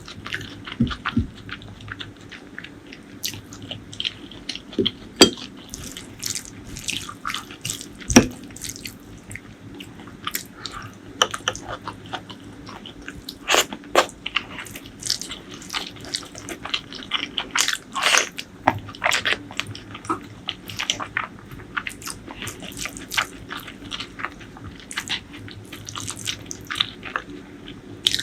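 Close-miked eating sounds: wet chewing, biting and lip smacks, heard as a continuous run of irregular sharp clicks and squelches.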